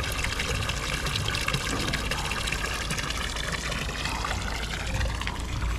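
Stone wall fountain, a thin stream of water from its metal spout falling and splashing steadily into the stone basin below.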